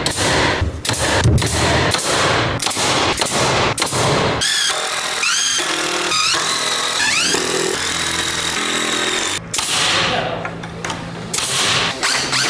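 Pneumatic framing nailer firing nails into 2x4 studs in a quick run of sharp shots, followed by a cordless drill/driver whirring in short rising bursts as screws are driven.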